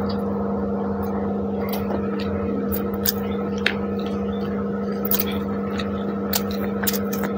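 Eating sounds: chewing, lip smacks and fingers squishing spiced rice, heard as scattered short, sharp clicks. A steady hum runs underneath.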